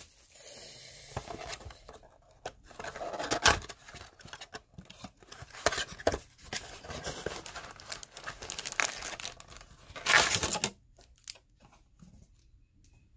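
Paper-and-plastic tearing and crinkling as a 2019 Score NFL trading card blaster box is torn open by hand, in irregular bursts, loudest about three and a half seconds in and again around ten seconds in, then dying down near the end.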